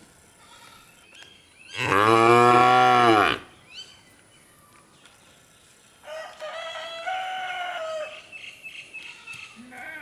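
A calf mooing: one long, loud call about two seconds in, its pitch arching up and back down. A second, higher and thinner drawn-out call follows about six seconds in and lasts about two seconds.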